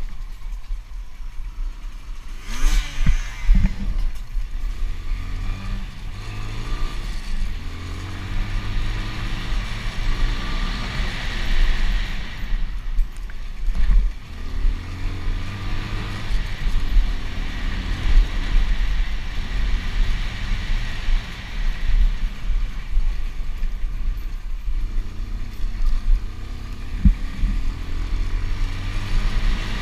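Motocross bike engine revving up and falling back again and again as the rider accelerates and shifts along a rough trail, with constant low wind rumble on a helmet-mounted microphone and occasional knocks from the bumps.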